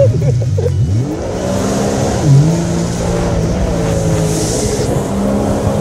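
Jet ski engine running under way, its pitch rising and falling as the throttle changes, over the rush of the hull and spray on the water. A louder hiss of spray comes about four seconds in.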